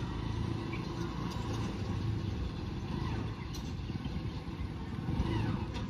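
Engine of a motorcycle-based mini farm vehicle (bike tool) running steadily as it is driven across a dirt yard, a low even rumble.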